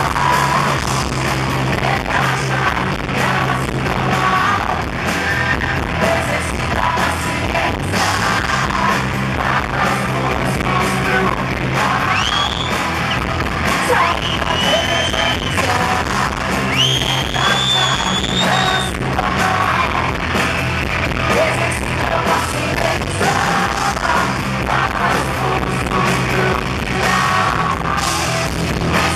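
Live rock band playing loud, with a female lead singer singing and yelling into the microphone. A few high, sliding, held notes stand out around the middle.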